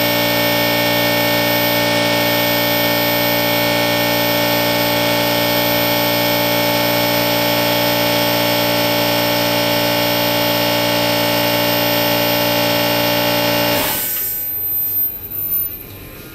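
Electric air compressor running with a steady, many-toned hum, then switched off about fourteen seconds in, leaving a few faint knocks.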